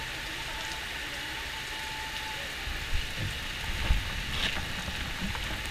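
Steady rain falling, with a low rumble underneath and a couple of soft knocks about three and four seconds in.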